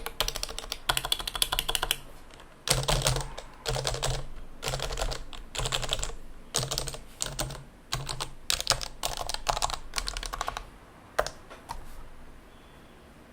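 Topre-style keyboard with Realforce RF101u internals (unsilenced, lubed housings and sliders on a stainless steel plate) being typed on in quick runs of keystrokes with short pauses between them. It thins to a single press and a few light taps near the end.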